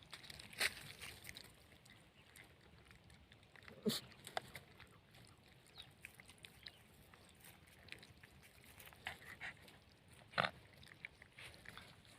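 Faint, irregular short animal noises, the three clearest about half a second in, at four seconds and near ten and a half seconds.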